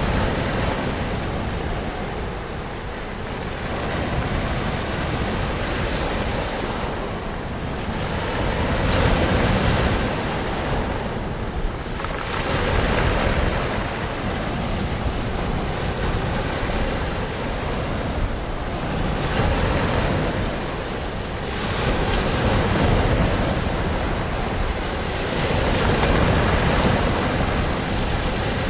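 Ocean surf: waves breaking and washing in, a continuous rush that swells and eases every few seconds.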